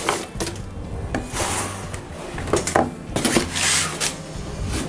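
Cardboard box rustling and scraping as a metal rocket stove is hauled out of it, with several knocks and bumps of the stove against the box and the wooden table as it is set down.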